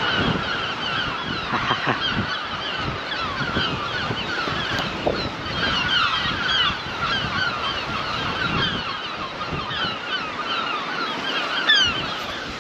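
Many birds at a nesting colony calling together, with short, falling calls overlapping continuously.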